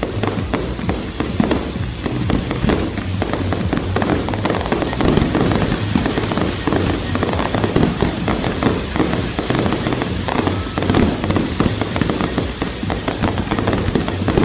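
Fireworks grand finale: a dense, unbroken barrage of shell bursts and crackling, with show music playing underneath.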